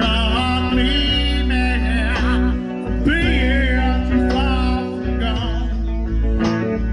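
Live country band: a man singing with a wavering vibrato on held notes over electric and acoustic guitars and steady low bass notes, amplified through a PA.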